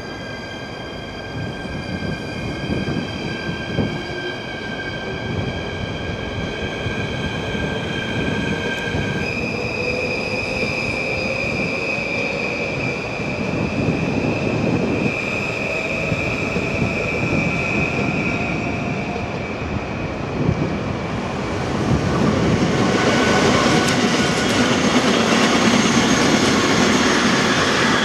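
NS electric multiple-unit passenger train moving off along the platform, its wheels squealing in high steady tones and its motors giving a faint whine that slowly rises in pitch as it gathers speed. After about twenty seconds a louder, steady rolling noise takes over as a freight train of empty container flat wagons runs through.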